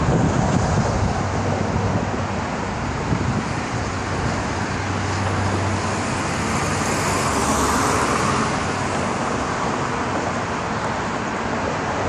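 Steady city road traffic noise, with one vehicle passing that swells and fades about halfway through.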